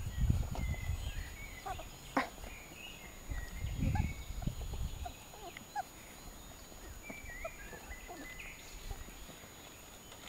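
A litter of young puppies nursing on their mother, with scattered short, faint squeaks and chirps from the pile and a sharp click about two seconds in. Low rumbles come in the first second and again around four seconds in.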